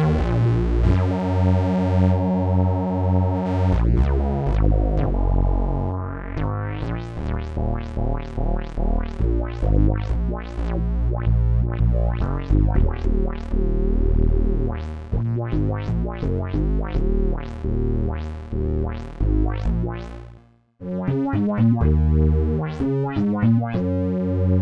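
Crumar Stratus synthesizer played with some of its organ sound blended in: held chords at first, then a run of quick notes. The sound cuts out briefly about 20 seconds in, and a held chord then comes back in.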